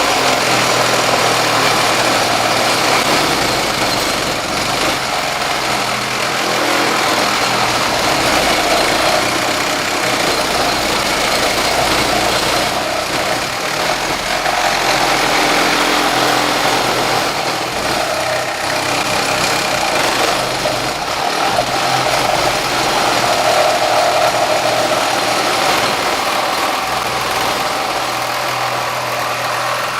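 Makita 12V max CXT cordless reciprocating saw cutting through 10-gauge steel, the blade sawing steadily without a pause.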